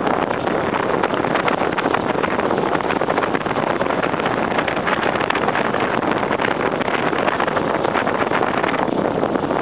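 Off-road motorcycle riding along a gravel road: the engine running steadily under heavy wind noise on the microphone.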